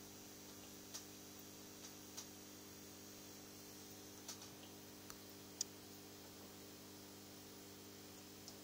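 Near silence: a steady low hum with a handful of faint, irregular ticks, the sharpest about five and a half seconds in.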